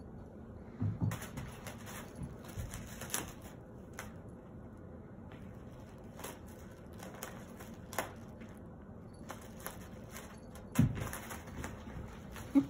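Plastic bag crinkling and rustling in fits and starts as a cat bites, kicks and rolls with it. A couple of dull thumps stand out, about a second in and near the end.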